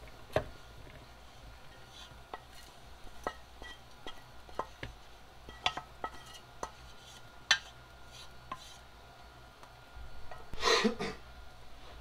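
Wooden spoon scraping and knocking cooked steak strips out of a stainless steel pot into a bowl, with scattered sharp taps about once a second. A louder rustling burst comes near the end.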